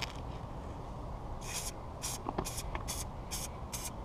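Aerosol can of matte black spray paint spraying in a quick series of short hissing bursts, about two or three a second, beginning a little over a second in: a second coat going on.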